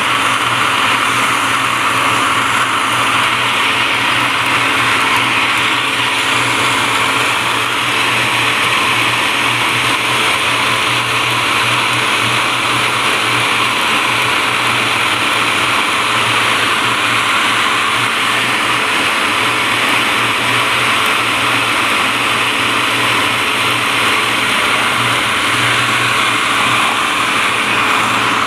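Electric food processor running steadily at full speed, shredding almeirão (chicory) leaves as they are pushed down the feed tube.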